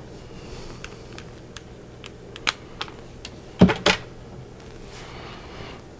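Small plastic-and-metal clicks of test-lead banana plugs being pushed into a bench power supply's output binding posts, about half a dozen scattered over the first three seconds, then two louder knocks about three and a half seconds in as the multimeter is handled.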